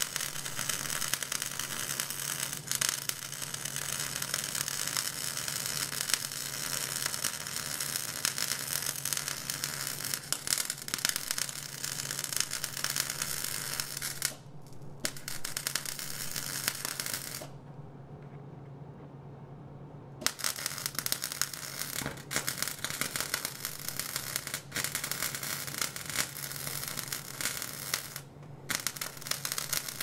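Electric arc welding: the arc runs in long stretches with a dense crackle over a steady low hum, stops for about three seconds a little past halfway, then strikes up again, with a couple of brief breaks near the end.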